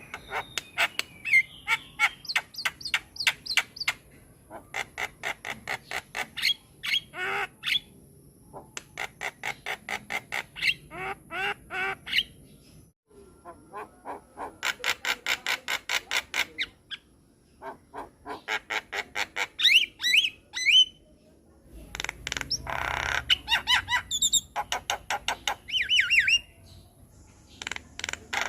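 Javan myna singing: fast runs of harsh, clicking and squawking notes, several a second, in bursts of a few seconds, mixed with short whistled glides that rise and fall.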